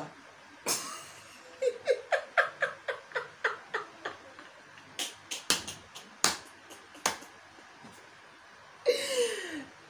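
A woman laughing hard in short breathy bursts, with a few sharp impacts in the middle and a breathy cry falling in pitch near the end.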